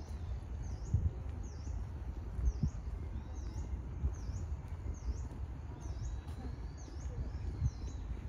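A bird repeating a short, high chirp at a steady pace, about three every two seconds, over a low outdoor rumble with a few soft thumps.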